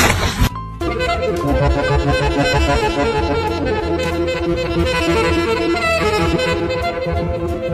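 Background music: a pitched melody line over a low bass line, coming in about a second in after a brief burst of noise.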